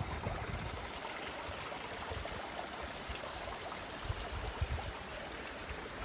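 Steady rushing of a forest creek, an even hiss of flowing water, with a few low thumps on the microphone.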